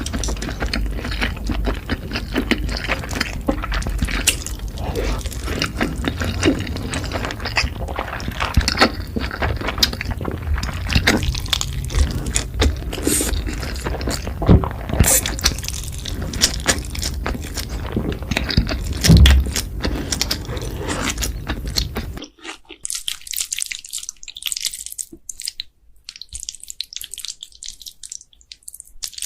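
Close-miked eating sounds: wet chewing and slurping of cheesy noodles and sausages, full of wet clicks and smacks. About 22 seconds in, the deeper part of the sound drops away, leaving only thin, crisp wet clicks.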